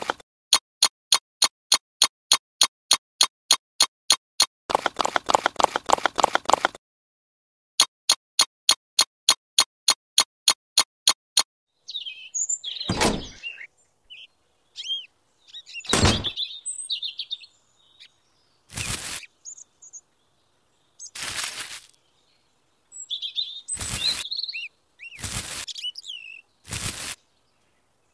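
Dubbed sound effects: an even, rapid clicking about four times a second for roughly the first eleven seconds, then birds chirping with several short, sharp effects in between.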